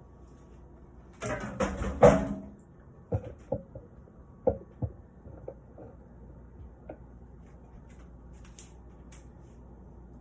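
Kitchenware being handled while a meal is plated: a burst of rattling clatter about a second in, then several separate sharp knocks and a few fainter ticks.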